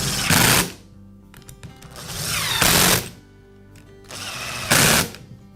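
A small power-tool motor running in three short bursts about two seconds apart, each building briefly and then stopping abruptly, over background music.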